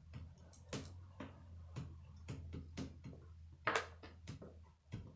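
Small plastic Lego bricks clicking and clattering as they are handled and pressed together on a tabletop: a dozen or so sharp clicks, one louder about two-thirds through, over a low steady hum.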